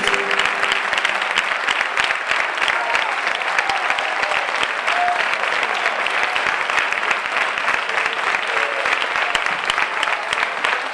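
Audience applauding steadily, with a few faint voices calling out now and then.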